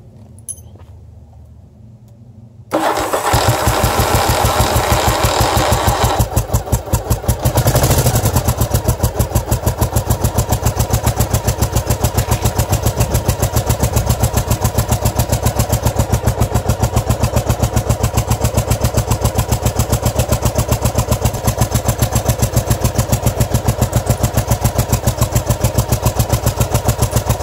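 A 1981 Yamaha XV750 Virago's air-cooled V-twin starts about three seconds in and runs fast for a few seconds. It dips, revs once briefly, then settles into a steady idle with evenly spaced firing pulses. It is idling while the carburettor's pilot (air-fuel) screw is turned to find the setting that stops popping on deceleration.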